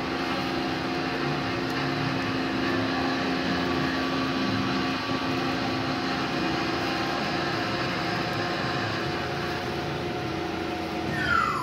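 A steady mechanical hum with several held tones. Near the end comes a quick falling whistle-like glide.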